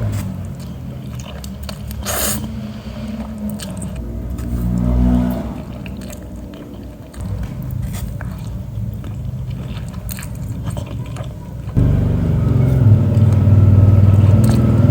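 Mukbang eating sounds: biting and chewing spicy noodles and sausage, with scattered clicks and scrapes of a utensil on the plate. Under it runs a steady low hum that gets louder about twelve seconds in.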